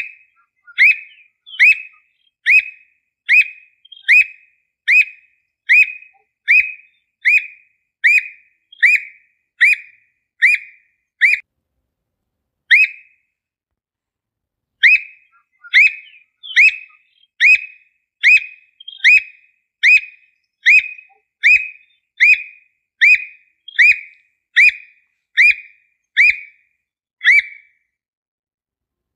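Squirrel cuckoo (alma-de-gato) calling: a long series of loud, sharp, upslurred whistled notes, a little more than one a second, broken by a pause of about three seconds near the middle.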